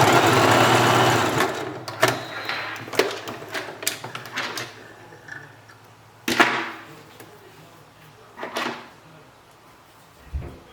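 A sewing machine runs in a short burst of about a second and a half, then stops. Light clicks of handling follow, with two brief swishes later on.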